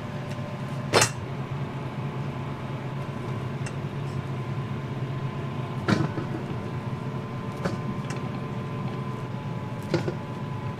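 Electric rice cooker lid opened with a sharp click about a second in, then cooked rice scooped out with a plastic rice paddle into a stainless steel bowl, the paddle knocking on the steel a few times. A steady low hum runs underneath.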